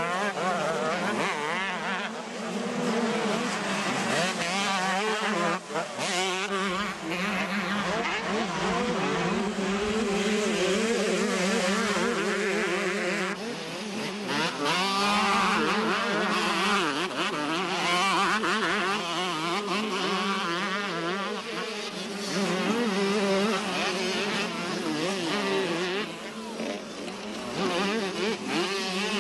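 Several 125cc two-stroke motocross bikes racing, their engines revving up and down in quick, overlapping waves of pitch.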